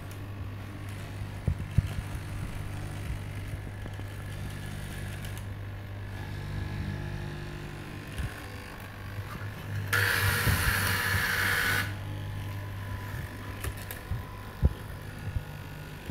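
Electric straight-knife cloth cutting machine running with a steady hum while its blade cuts through a tall stack of fabric layers, with scattered light knocks. About ten seconds in, a loud hissing rasp lasts about two seconds.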